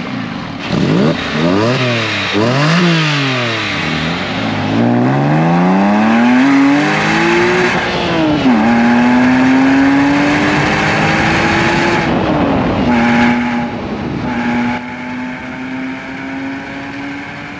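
Porsche 911 (997) Carrera S 3.8-litre flat-six revved in several quick blips. It then pulls up through the revs, with gear changes dropping the pitch about eight and twelve seconds in. It settles to a quieter, slowly rising tone near the end.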